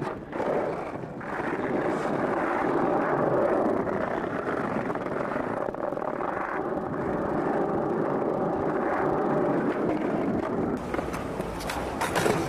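Skateboard wheels rolling over rough asphalt, a steady gritty rumble. A few sharp clacks come near the end.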